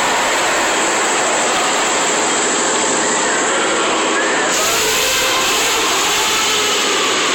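Diesel engine running steadily and loudly after a fresh oil change, heard close up.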